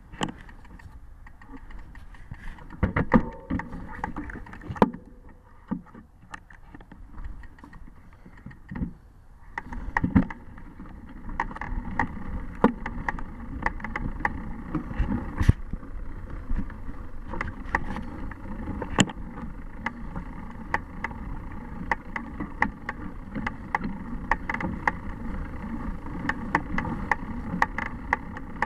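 Bicycle on a leaf-covered dirt trail, heard from a camera mounted on the bike: scattered knocks and rattles at first, then from about ten seconds in a steady rolling rumble of the tires over dry leaves and dirt, with frequent clicks and rattles of the bike over bumps.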